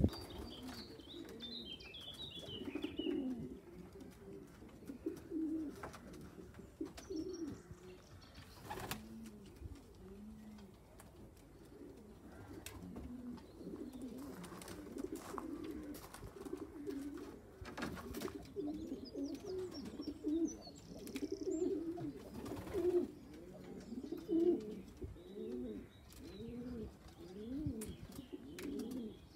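Racing pigeons cooing over and over, a string of low calls that rise and fall, with a few sharp clicks and some faint high chirps from a smaller bird.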